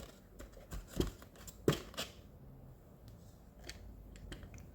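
A few light clicks and knocks as die-cast toy construction vehicles are handled and set down on a surface, the sharpest about a second in and again near two seconds.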